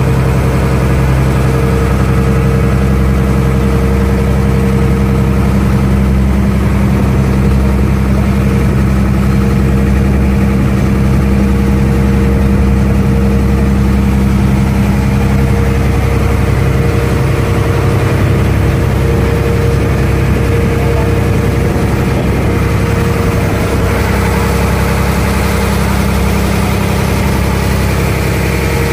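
A ferry boat's engine running steadily, heard from on board the deck as a loud, even hum. Its note changes about halfway through.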